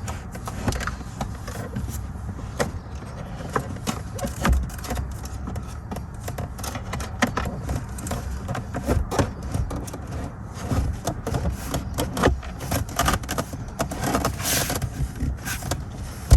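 Irregular plastic knocks, scrapes and rattles as a Dometic CCF-T center console fridge is lowered and worked into place in the truck's center console, over a low rumble.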